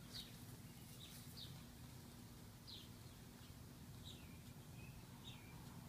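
Near silence with faint bird chirps in the background: short, high chirps, some dipping in pitch, about one a second.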